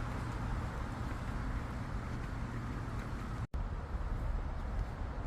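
Steady outdoor background noise with a strong low rumble and a faint hiss, with no distinct events. It drops out completely for an instant about three and a half seconds in.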